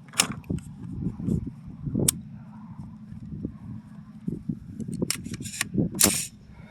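A few sharp clicks and knocks, the loudest right at the start and about six seconds in, over a low rumble of handling on the microphone.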